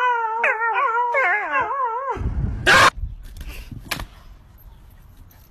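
A dog howling in a high, wavering cry that bends up and down in pitch for about two seconds. It is followed by a sudden loud burst of noise.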